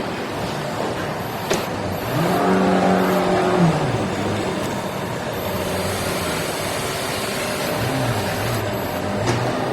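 Plywood core veneer laying line running: steady machine noise with a motor whine that rises about two seconds in, holds, then falls away, and a couple of sharp clicks.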